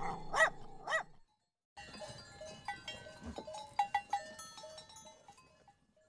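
Small white terrier yapping three quick, high barks in the first second. After a short pause comes a run of shorter, quieter calls.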